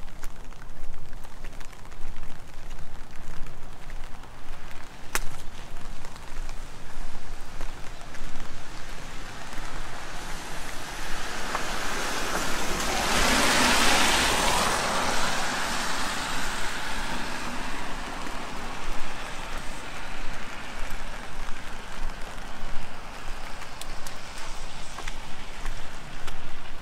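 A Nissan minivan drives past on wet asphalt: its tyre hiss swells to a peak about halfway through and then fades. Steady rain noise runs underneath.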